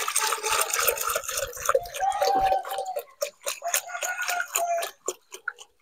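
Liquid microbial solution being poured and splashed by hand onto rice-husk litter in a chicken coop: a steady splashing hiss that breaks up into scattered ticks and drips toward the end.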